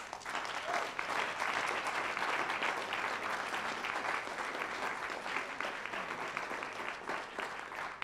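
Audience applauding, many hands clapping together, dying down a little near the end.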